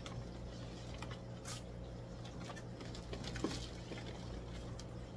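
Steady low hum of a tank room full of running aquarium pumps and filters, with a faint steady tone above it. Faint rustling, crinkling and splashing of plastic fish bags being handled comes through now and then, most noticeably about a second and a half in and again a little past the middle.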